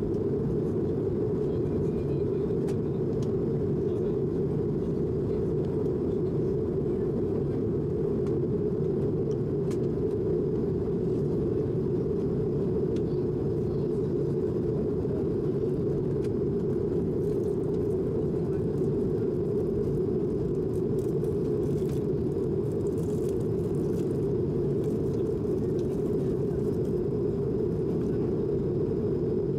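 Steady low rumble of an Airbus A220's Pratt & Whitney PW1500G geared turbofans and rushing air, heard from inside the passenger cabin. It holds even throughout, with no change in pitch or level.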